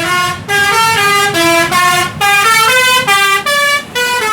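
A bus's Basuri "telolet" multi-tone air horn playing a quick melody: stepped notes with several tones sounding together, in short phrases separated by brief breaks.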